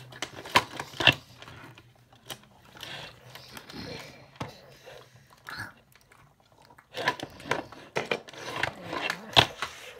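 Sharp plastic clicks and clacks from a large toy tyrannosaurus as a hand works its head and jaw, with knocks of the toy on the floor; a few spaced clicks at first, then a quick run of them near the end.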